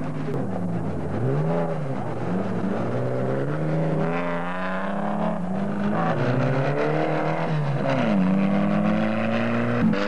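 Off-road race vehicle engine revving under load, its pitch rising and falling several times, with a long climb about halfway through and a sharp drop near the end. A short knock comes just before the end.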